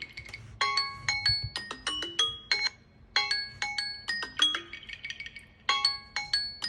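Samsung Galaxy phone alarm and timer tones sounding together: a bright, chiming, marimba-like melody of quick struck notes, its phrase repeating about every two and a half seconds, signalling the alarm and timer going off at once.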